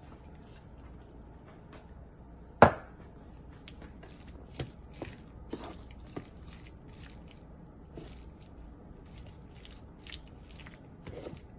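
Guacamole of mashed avocado, diced tomato and red onion being stirred in a wooden bowl: soft squishing with scattered light taps of the utensil against the bowl. One sharp knock comes about two and a half seconds in.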